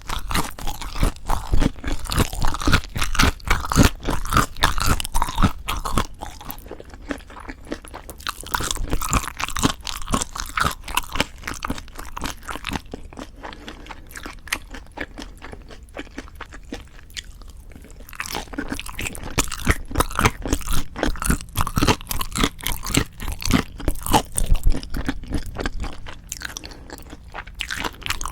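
Close-miked mukbang eating sounds: crunchy chewing and biting of lettuce-wrapped ssam bites of raw fish bibimbap and boneless chicken feet. The chewing is louder for the first six seconds or so and again over the last third, and softer in between.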